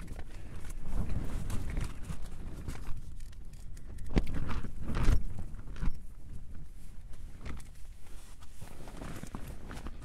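Wind gusting against the tent, a low rumble that swells and fades, with the crinkle of a foil freeze-dried meal pouch and a few sharp clicks and scrapes of a spoon in it around the middle.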